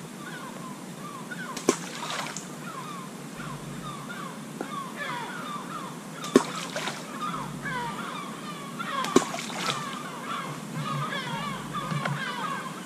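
Balls of groundbait thrown by hand into a river, landing with three separate splashes a few seconds apart. Birds call continuously underneath.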